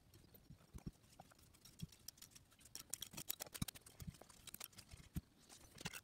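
Faint, irregular clicks and light knocks from handling the parts of a disassembled ceiling fan motor, more of them in the middle seconds.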